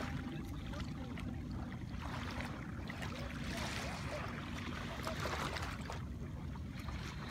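Shallow sea water splashing and sloshing as a person wades through it, the splashing heaviest in the middle of the stretch, over a steady low rumble.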